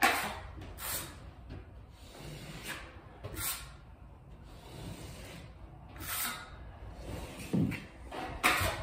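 Drywall taping knife spreading and scraping pre-mixed joint compound into an inside-corner joint: a series of short scraping swishes spaced irregularly, with a slightly louder stroke near the end.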